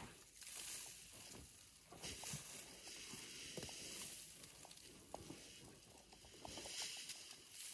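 African elephant dust-bathing: her trunk scrapes up dry soil and leaf litter and flings sand over her back. A faint rustling hiss comes in several surges, with small crackles of dry leaves.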